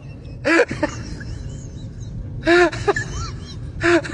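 An animal calling three times, each loud call followed by a few shorter, fainter chirps that rise and fall in pitch, over a steady low hum.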